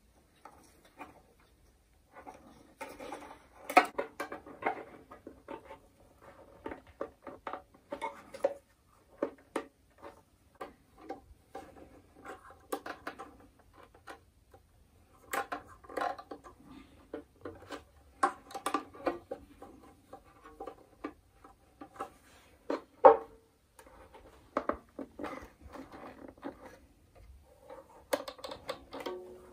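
Baroque violin being restrung by hand: a long run of small clicks, taps and rattles as the strings are threaded and the bridge and pegs are handled, the sharpest click about two-thirds of the way through, over faint ringing of the slack strings.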